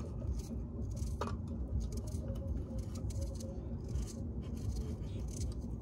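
Small clicks and scraping as a butane gas canister is worked onto the valve of a portable camping stove, metal and plastic parts knocking against each other, over a low steady rumble.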